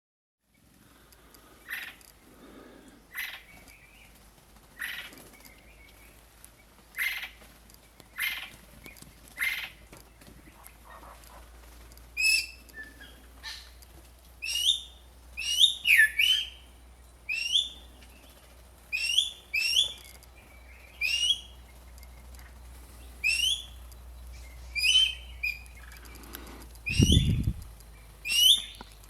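Birds calling: a short sharp call repeated about every one to two seconds, joined about twelve seconds in by a different call of quick notes sweeping up and down. A dull low thump near the end.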